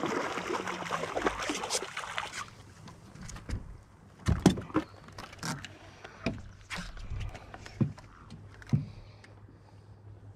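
A hooked fish thrashing and splashing at the water's surface for the first couple of seconds, then a series of sharp knocks and thumps on the boat, the loudest about four and a half seconds in.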